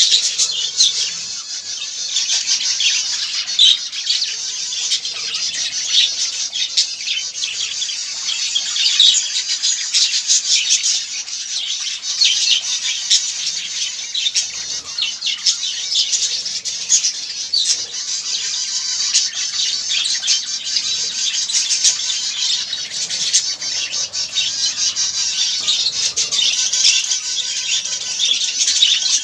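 A flock of budgerigars chattering and warbling all at once, a steady dense mass of high chirps and twitters with no pauses.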